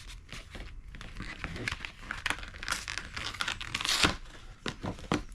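Paper and packaging being handled while a box is unpacked: irregular crinkling and rustling with short tearing sounds, loudest about four seconds in.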